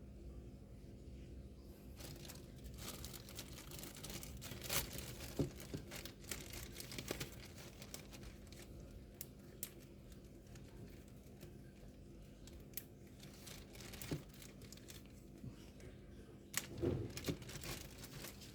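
Plastic packaging crinkling and tearing in handling, with scattered sharp clicks and crackles starting about two seconds in and a louder cluster near the end: a new laptop RAM stick being unwrapped.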